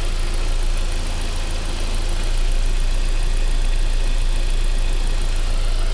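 Saab 9-5 2.0-litre turbo BioPower four-cylinder engine idling steadily, heard close up in the open engine bay. It is running on a freshly fitted serpentine belt and idler pulley, and everything is working nicely.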